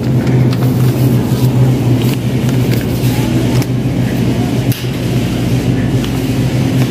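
Steady low hum with dense rumbling background noise in a supermarket aisle.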